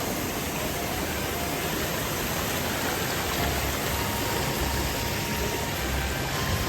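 Hot-spring waterfall and stream rushing steadily, an even wash of falling and flowing water.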